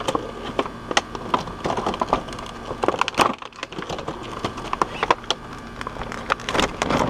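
Stiff clear plastic packaging crackling and crinkling in irregular sharp snaps as it is handled and a hose timer is worked out of it.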